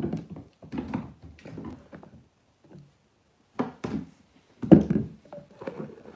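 A kitten scampering and pouncing on a wooden floor while chasing a feather teaser wand: a run of quick thumps of paws on the floorboards, a short pause, then two louder thuds about three and a half and four and a half seconds in.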